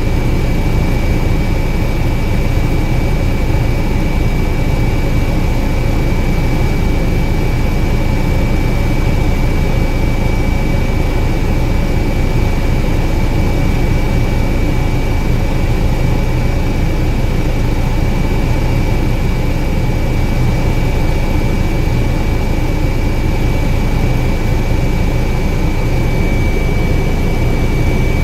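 Helicopter in flight, heard from inside the cabin: a steady deep drone with a thin high whine held at one pitch.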